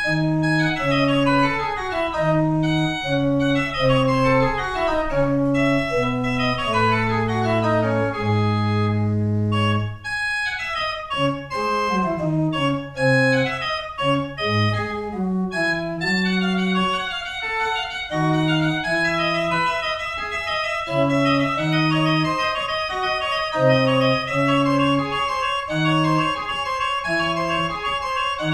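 An 18th-century pipe organ built in 1760 plays a Baroque keyboard piece, with no voice. Several moving parts in stepwise notes settle into a held low chord about eight to ten seconds in. Then comes a livelier passage of quick, repeated notes.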